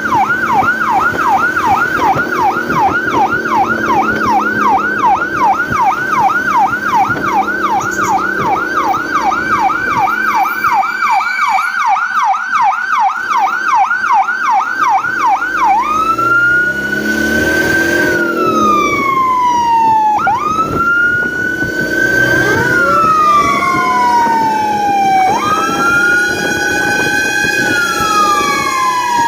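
Fire truck sirens: a fast yelp cycling about three times a second, switching about sixteen seconds in to a slow rising-and-falling wail, with a second wailing siren joining out of step a few seconds later.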